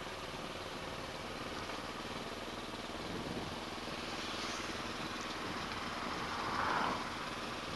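Motorcycle engine running steadily while riding, mixed with a steady rush of wind noise.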